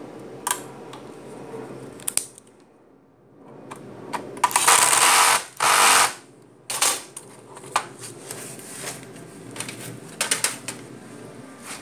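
Tools and loose screws being handled on a table: scattered clicks and knocks, with two loud noisy rushing bursts about four to six seconds in.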